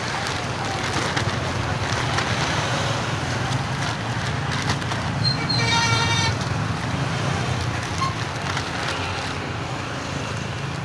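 Steady traffic-like rumble with scattered small clicks and rustles. A short, horn-like tone sounds about five and a half seconds in and lasts under a second.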